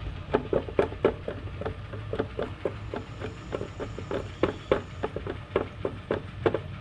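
Small electric vacuum pump running with a faint low hum, pulling vacuum on a car's A/C system through a manifold gauge set, with irregular light clicks and taps, about three or four a second.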